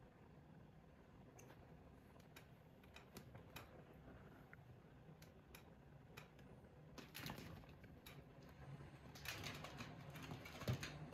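Faint scattered clicks and scuffing of two long-haired cats' paws scrabbling on a fabric-upholstered chair as they tussle and climb, coming thicker in the second half.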